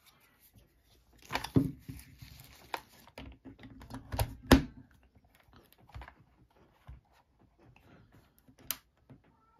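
A charger's plug adapter and cable being handled and plugged into a plastic extension strip: rustling and a series of sharp plastic clicks and knocks, the loudest about four and a half seconds in as the plug is pushed into the socket.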